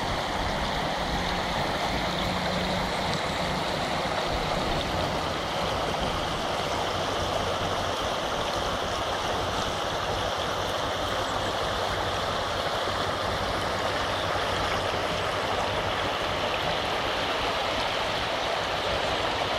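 Fast-flowing river floodwater rushing steadily: a river that has burst its banks after heavy rain.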